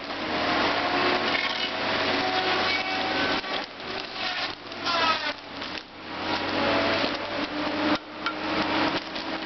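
Timbco tracked feller buncher working hard, its engine and hydraulics running loud while the felling head cuts and handles trees. Whining tones rise and fall over the din, with repeated sharp cracks and knocks of wood and branches.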